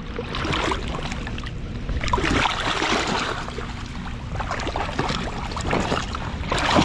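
Irregular water splashing and sloshing, with small clicks and knocks mixed in.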